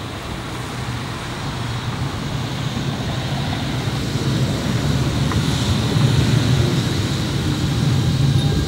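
Low-floor tram approaching on grassed track, its running rumble growing steadily louder as it nears, with a thin high-pitched tone throughout.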